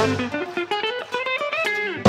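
Electric guitar playing a quick phrase of single plucked notes on its own, a break in a live ska song with the drums and bass dropped out.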